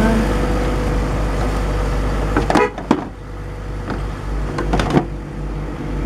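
A car engine idling steadily. Several sharp clicks and knocks from handling the plastic headlight assembly come about two and a half to five seconds in.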